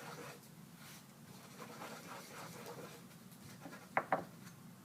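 Nail-art stamping plate being wiped clean, a faint rubbing and scratching, then two quick sharp clicks about four seconds in.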